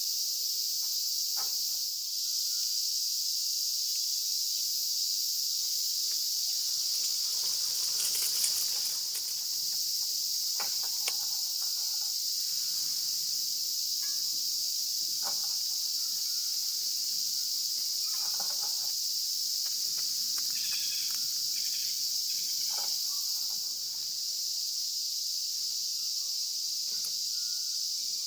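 Steady, high-pitched chorus of crickets and other summer insects, with a few faint clicks and crackles scattered through it.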